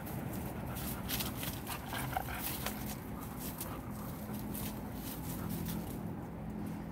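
Siberian husky moving in dry leaf litter and tamarind branches: rustling and crackling clicks from leaves and twigs, with dog sounds among them.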